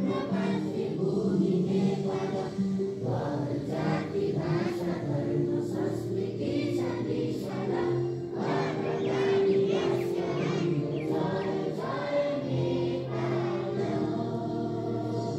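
Many voices singing a slow song together, like a choir, over sustained musical tones.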